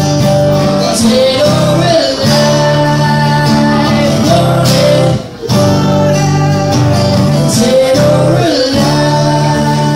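Live acoustic guitar strummed in chords, with a voice singing over it. The music drops out for a moment about five seconds in, then carries on.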